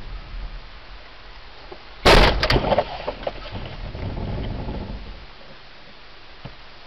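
A car hits a pedestrian about two seconds in: one sudden loud thud as the body strikes the car's front and windshield, followed within a second by a few sharper knocks. A rumble follows and fades out about five seconds in, leaving steady low noise.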